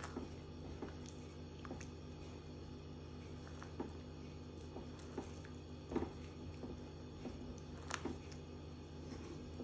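Silicone spatula stirring thick, wet chana dal in a non-stick wok: soft squelching with scattered light scrapes and taps against the pan, the strongest about 6 and 8 seconds in, over a steady low hum.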